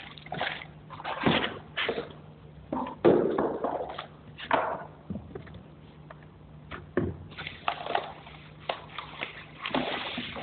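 Packaging being handled: irregular rustling, scraping and knocks of cardboard box flaps and inserts, a plastic bag crinkling, and foam packing rubbing against the cardboard as the foam-packed projector is lifted out of the box.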